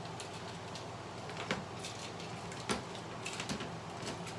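Small items being handled by hand: a few sharp clicks and light rustles, one about a second and a half in and several near the end, over a steady low hum.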